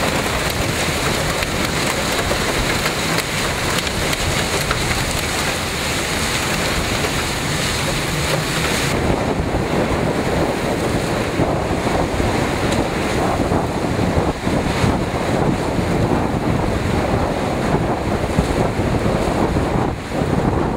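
Heavy thunderstorm rain pouring down in gusting wind. After about nine seconds it gives way to waves crashing against a concrete seawall, with strong wind buffeting the microphone.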